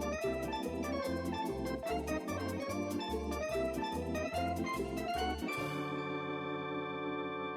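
Background music on an organ-like keyboard: a bouncy melody over an even bass line, settling about two-thirds of the way through into one held chord.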